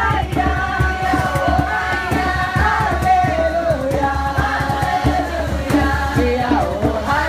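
Live amplified music: a woman singing a melody into a microphone over acoustic guitar, played through a PA speaker with a steady beat.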